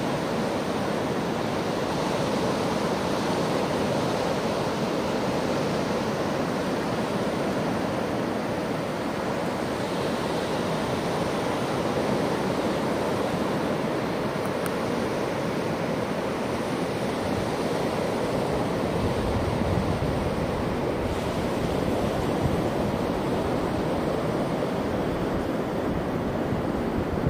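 Steady wash of ocean surf breaking along the beach, mixed with wind. The wind rumbles on the microphone more strongly over the last several seconds.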